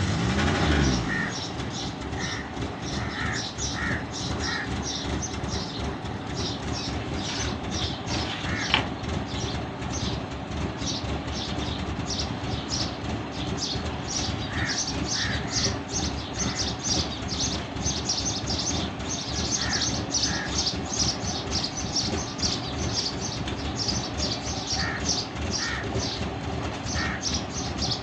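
Suzuki Mehran's 800 cc three-cylinder petrol engine firing up right at the start, then idling on a cold start with a steady, uneven pulsing beat: a misfire. Birds chirp now and then in the background.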